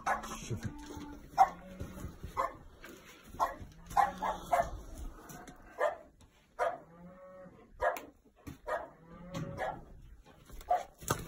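Penned animals in a barn give a string of short, low moaning calls, about half a dozen, between sharp knocks and rattles of the pens.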